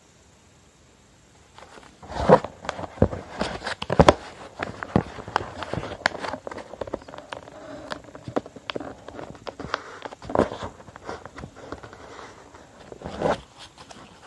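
A sheet of copy paper being folded and creased against a tabletop: crisp crinkles, rustles and sharp snaps as fingers and knuckles press the folds flat. It starts about a second and a half in and carries on in uneven spurts.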